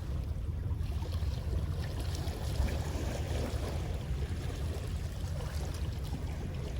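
Sea water washing against shore rocks, with a steady low rumble of wind on the microphone.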